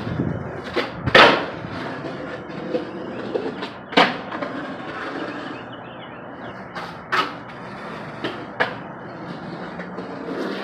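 Skateboard wheels rolling on concrete, broken by sharp clacks of the board hitting the ground about six times, the loudest about a second in and at four seconds.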